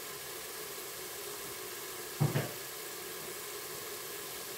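Rice, diced ham and peas sizzling gently in an electric pressure cooker's pot on sauté, a steady soft hiss as the white wine cooks off. A brief low bump about two seconds in.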